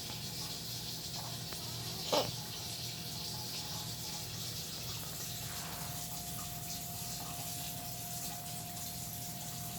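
A pet gives one short, sharp cough about two seconds in, over a steady background hiss.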